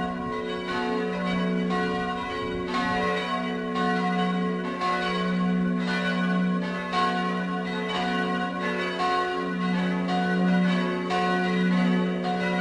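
Full peal of church bells: several tower bells swinging and ringing together, their strokes falling irregularly and overlapping over a steady low hum.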